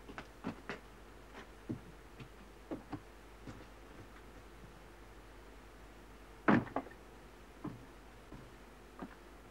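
Wooden plank door of an old log building being opened and shut: a string of light clicks and knocks, then one heavy thud about six and a half seconds in as it closes, followed by a few smaller knocks.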